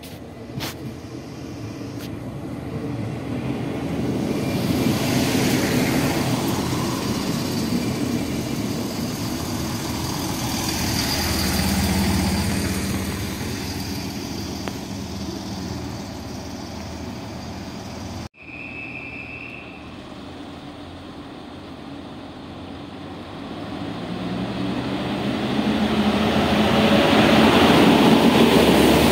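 Arriva LINT diesel train running into the station along the platform, its noise rising and then fading. After a cut, another train's engine runs at the platform and grows steadily louder near the end, with a brief high beep just after the cut.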